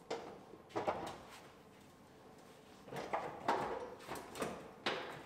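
A few scattered clunks and scuffs from a pickup's crew cab interior as a rear seat is shifted and someone climbs in.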